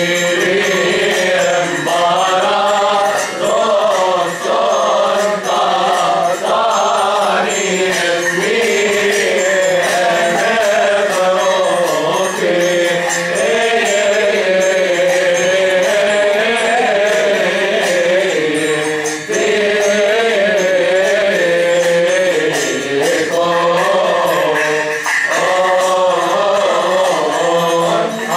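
Coptic Orthodox liturgical hymn chanted in long, drawn-out wavering melodic lines, continuous throughout.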